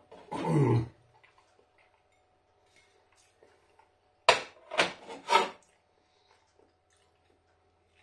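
Ceramic plates being handled: a sharp knock about four seconds in, then two more clinks soon after. A brief vocal sound comes just after the start.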